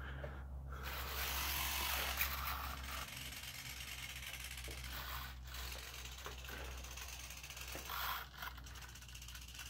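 Small 360-degree continuous-rotation servos whirring as they turn an RC model bomber's gun turrets, a faint gear whir over a steady low hum, a little louder in the first couple of seconds.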